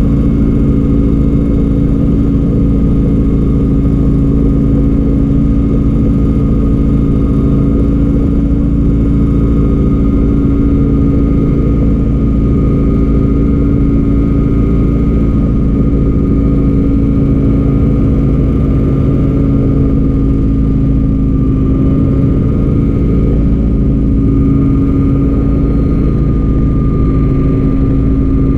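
An engine running steadily at a near-constant speed, with a droning hum that shifts only slightly in pitch.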